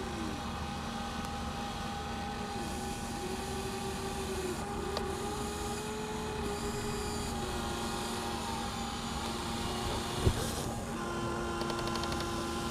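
Electric motors and gearboxes of Huina radio-controlled excavators whining steadily, the pitch bending up and down as the arms and tracks are driven, with a sharp click about ten seconds in.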